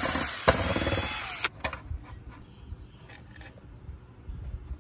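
Cordless electric screwdriver backing out the screw that holds an electric fan's push-button switch, its motor whining for about a second and a half before stopping suddenly. A few faint clicks follow as the switch assembly is lifted out.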